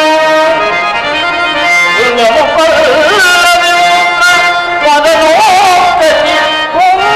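Padya natakam stage accompaniment: a harmonium sustaining reedy tones under an ornamented melody line that bends and wavers in pitch.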